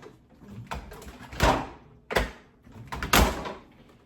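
Refrigerator door being handled, shut and opened: three loud bumps, each with a short rush of noise, about a second and a half in, just after two seconds, and just after three seconds, with quieter rattling of items in between.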